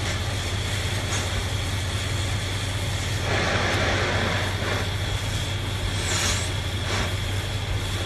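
Oxy-fuel cutting torch flame hissing steadily against a steel pipe, preheating the spot where the cut will start.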